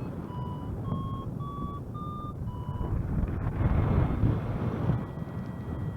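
Paraglider variometer beeping its climb tone: five short beeps, each a little higher in pitch, signalling rising air. Wind rushes on the microphone throughout, swelling around the middle.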